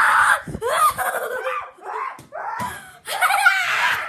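A person screaming in a run of short, loud, high-pitched shrieks with brief breaks between them.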